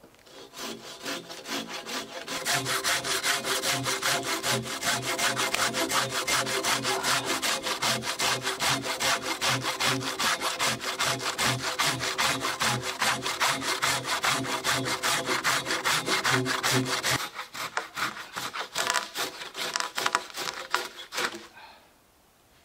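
Hand pruning saw cutting through a felled conifer log, fast steady back-and-forth strokes rasping through the wood. Near the end the strokes turn lighter and more spaced, then stop.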